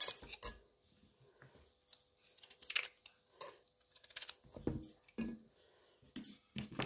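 Scattered light knocks, clicks and scrapes of kitchen prep as thick chunks of potato are handled and put into a cooking pot.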